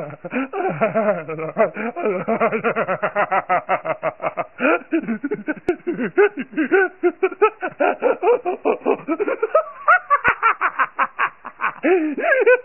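A cartoon character's voice laughing without a break, in many quick 'ha' bursts a second that rise and fall in pitch, easing briefly about ten seconds in before picking up again.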